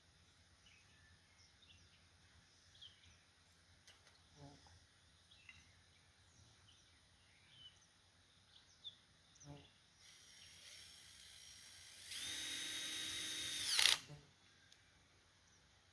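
A power drill runs for about four seconds near the end, quieter at first, louder for its last two seconds, then cuts off sharply.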